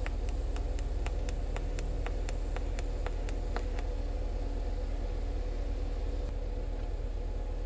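TIG welder running while steel gussets are tack-welded onto a Toyota Tundra steering spindle: a steady hum, with a run of sharp ticks, about three or four a second, over the first three and a half seconds.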